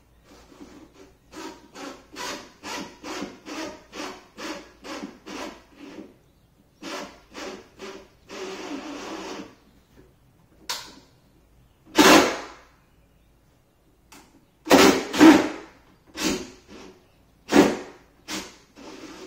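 Hand work inside a wooden base cabinet: a quick run of rhythmic rasping strokes, about two or three a second, then a short steady rasp, followed by several louder sudden bumps.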